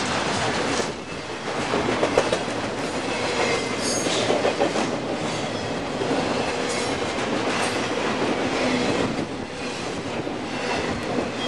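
BNSF intermodal stack train's cars rolling past at track speed, a steady rumble with the wheels clacking over the rail joints.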